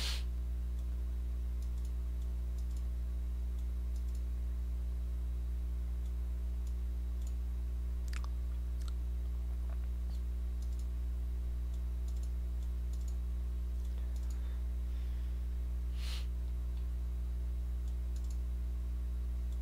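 Steady low electrical hum with a stack of evenly spaced overtones, with a few faint, scattered clicks.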